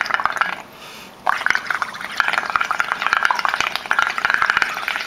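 Blowing through a drinking straw into a bowl of soapy bubble solution mixed with tempera paint: fast, crackly bubbling as a froth builds up. It breaks off for about half a second, about a second in, then starts again.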